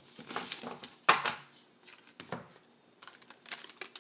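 Baseball cards being handled: a few light taps and clicks as the cards are shuffled and set down, the sharpest about a second in, with fainter ticks near the end.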